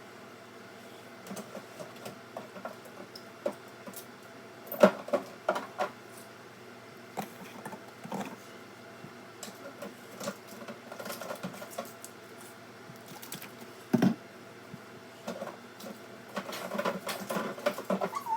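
Jars, bottles and food containers being lifted out of a fridge and set down, giving scattered knocks, clinks and rustles, loudest about five seconds in and again about fourteen seconds in, with a busier run of handling near the end. A faint steady hum lies underneath.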